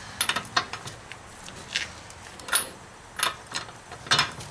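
A 32 mm socket and wrench on a just-loosened front axle nut, clicking and clinking metal on metal as the nut is worked by hand. The clicks come in a few short runs at uneven spacing.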